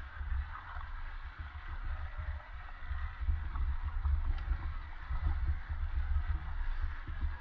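Wind rumbling on the microphone over a steady rush of river water, with a few faint knocks.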